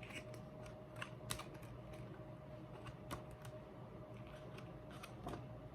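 Faint, scattered clicks and taps of a paper photo book being handled and its pages turned.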